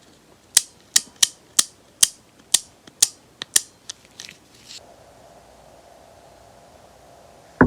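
Pittsburgh Pro 1/2-inch drive ratchet's pawl clicking over the gear teeth as the mechanism is turned by hand: about nine sharp, separate clicks over some three seconds. A single knock near the end.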